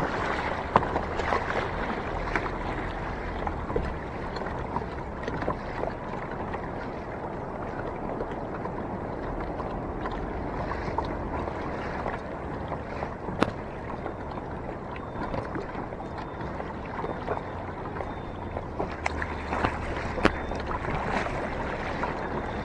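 Water sloshing and splashing against a kayak's hull out on the sea, with a few sharp knocks now and then.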